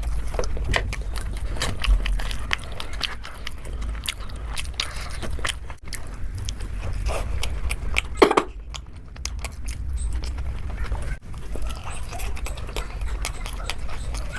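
Close-miked eating sounds: a person chewing and biting food, with many irregular wet mouth clicks. One short, louder pitched mouth sound about eight seconds in.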